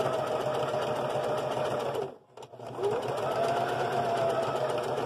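Singer electric sewing machine stitching, motor humming with a steady whine. It slows and stops about two seconds in, then starts again with a rising whine a moment later.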